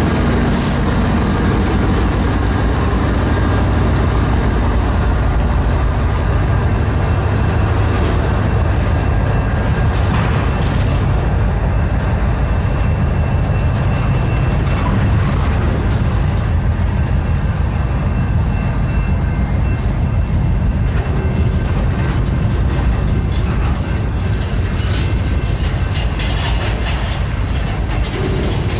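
Slow-moving freight train passing close by: the trailing diesel locomotive's engine goes by at the start, then double-stack container well cars roll past with a steady rumble of steel wheels on rail. Clanks and knocks become more frequent near the end.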